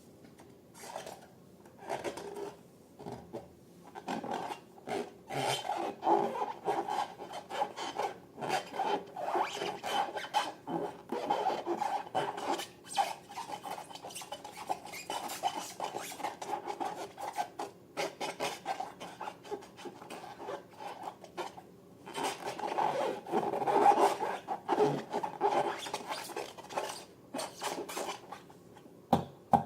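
Hands squeezing and rubbing slime and rubber balloons, making a run of irregular rubbing and crackling sounds that swell in two busier stretches.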